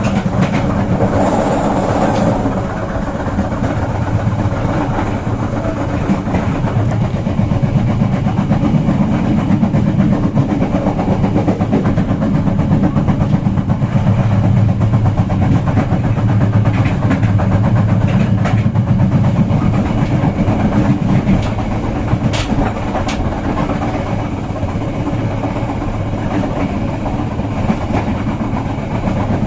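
Bengawan passenger train running on the rails, heard from inside the carriage: a steady low rumble of wheels on track with clickety-clack, and a couple of sharp clicks about three-quarters of the way through.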